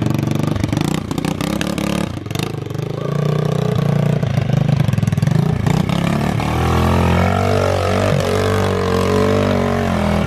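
Pit bike's Loncin 110/125 single-cylinder four-stroke engine running. It runs steadily at first, then from about six seconds in the engine speed rises and falls.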